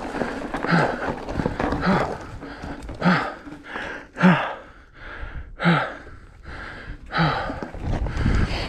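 A mountain biker breathing hard, with a short voiced exhalation about every second and a bit, over wind and trail rumble on the helmet microphone.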